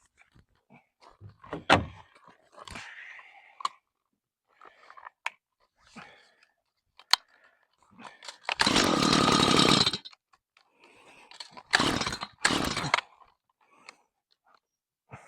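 Gas chainsaw being pull-started after a shot of starting fluid. There are scattered clicks and handling, then a loud burst of about a second and a half where the engine fires briefly and dies, then two quick yanks on the starter cord; the saw does not keep running.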